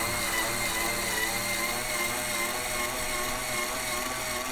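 Power drill spinning an RCBS three-way cutter head on a Hornady case trimmer, a steady motor whine as it trims, deburrs and chamfers the neck of a 7.62x39 brass case being cut down for 6.5 Grendel.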